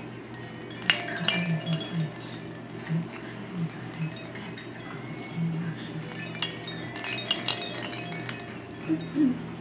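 Hanging toys of a baby's activity gym jingling and clinking as the baby grabs and shakes them, in two flurries: one about a second in and a longer one from about six to eight seconds in.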